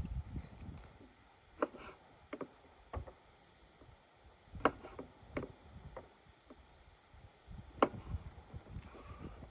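Several sharp knocks or cracks at irregular intervals, the loudest near the end, over a low rumble.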